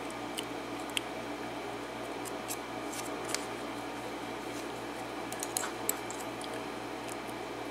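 Scattered faint metallic clicks and ticks of small lock pins and tools being handled as the pins are pulled from a pin-in-pin lock cylinder, over a steady low hum.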